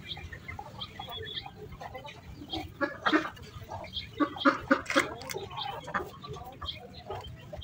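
Rooster flapping its wings: a quick run of sharp feather beats about four seconds in, among scattered short bird calls.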